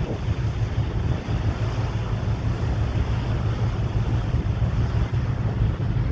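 Wind buffeting the microphone over the steady rush of foaming water along the hull of a moving passenger ferry.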